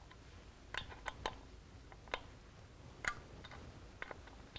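Faint, irregular metallic clicks and taps of a socket and dial torque wrench on the cam cover bolts of a Harley-Davidson Twin Cam engine as they are torqued in a staggered sequence.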